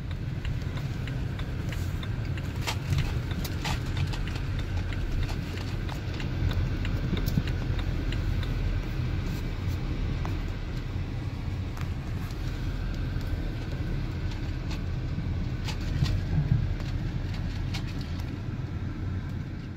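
Car driving, heard from inside the cabin: a steady low engine and road rumble with occasional light clicks and knocks.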